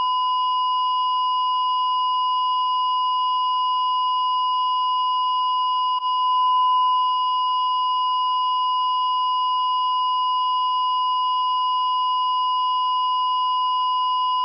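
Heart monitor's continuous flatline tone: one steady, unbroken high beep, the sign that the heart has stopped. A faint click and a slight swell in level come about six seconds in.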